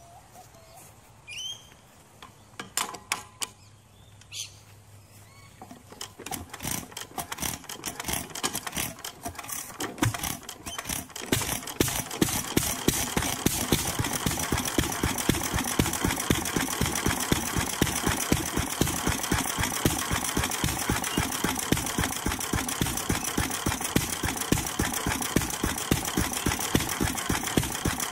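1926 International Harvester M Type 3 HP single-cylinder hit-and-miss stationary engine starting up: about six seconds in its knocks begin and quicken, and from about twelve seconds in it runs steadily with a rapid rhythmic beat and regular sharper firing strokes. Birds chirp faintly before it starts.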